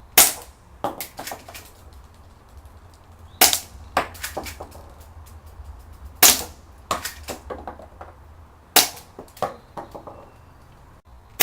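Spring-powered Smith & Wesson airsoft pistol firing about five single shots a few seconds apart, each a sharp snap followed by a few smaller clicks and knocks.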